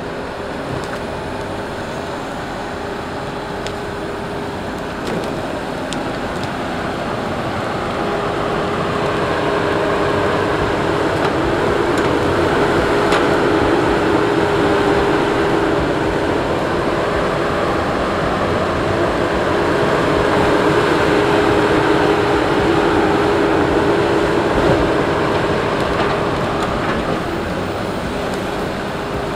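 Heavy logging machines working: the diesel engines of a John Deere rubber-tyred skidder and a Tigercat log loader, with a steady whine. The sound grows louder about eight seconds in as the skidder comes close, and eases off near the end.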